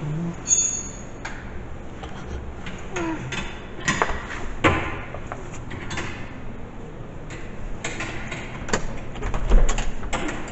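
Irregular knocks, clicks and clatter, with a brief high squeak about half a second in and a quicker run of knocks near the end.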